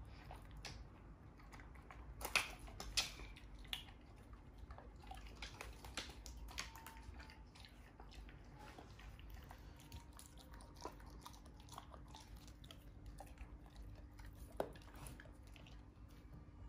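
Faint crunching and nibbling of hay being chewed at a rabbit's wire cage, mixed with scattered small clicks and knocks. The two loudest clicks come about two to three seconds in.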